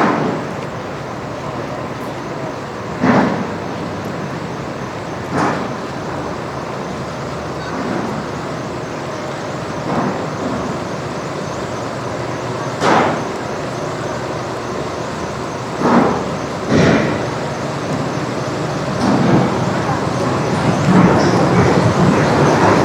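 Busy city-street ambience: a steady wash of traffic noise with buses and passing voices, and a short, louder sound every two to three seconds.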